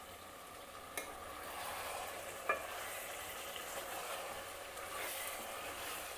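Chicken curry sizzling in a pot while a spoon stirs the pieces through the thick gravy. The spoon clinks against the pot about a second in, and again more loudly about two and a half seconds in.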